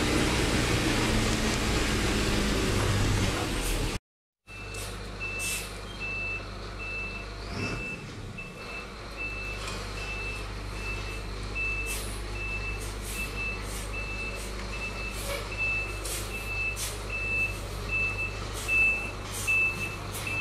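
Cab noise of a Mercedes-Benz city bus running. About four seconds in this gives way to the same bus reversing: its reversing alarm beeps at a steady high pitch, about three beeps every two seconds, over the low hum of the engine, with a few short clicks.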